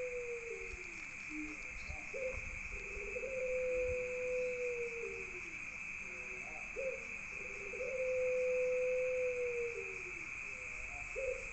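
Puter pelung dove cooing: about three long, level coos, each led by a short note and falling away at the end, repeating every four to five seconds; the owner calls its voice unclear. Crickets chirp steadily behind it.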